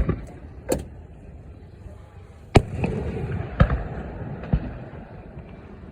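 Fireworks display: aerial shells bursting with about five sharp bangs spaced irregularly. The loudest comes about two and a half seconds in, followed by a low rumbling echo.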